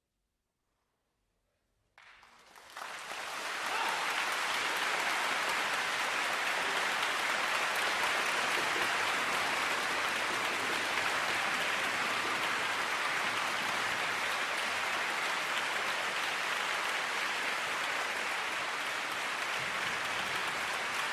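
Near silence for about two seconds, then an audience in a concert hall breaks into applause, swelling quickly into steady clapping.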